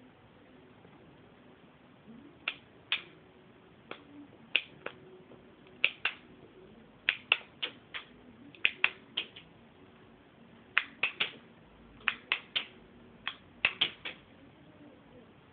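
Homemade semi-automatic BB gun being shot repeatedly: about two dozen sharp clicks and snaps, often in quick pairs or threes, starting a couple of seconds in and stopping shortly before the end.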